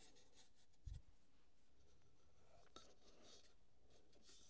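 Near silence, with faint rubbing as wooden box panels are handled and set into place, and one soft low thump about a second in.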